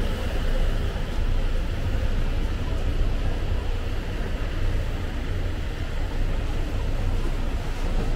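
Parked coaches' engines idling: a steady low rumble with a constant hum.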